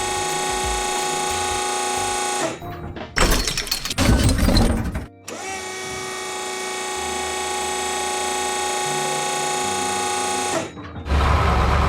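Power-tool sound effects in a repair-shop scene: a steady drill-like whine with many overtones, broken about three seconds in by a couple of seconds of harsh clattering, then the whine resumes, and a loud noisy burst comes near the end.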